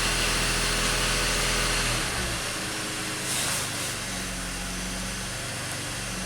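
BMW X5 six-cylinder engine, fully warmed up, running at a raised speed, then dropping back to a steady, quieter idle about two seconds in. A brief hiss comes a little after.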